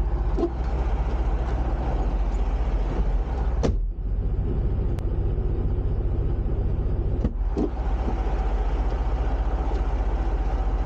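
Semi truck's diesel engine idling steadily, heard from inside the cab as a low pulsing rumble. The sound breaks off briefly twice, about four and seven seconds in.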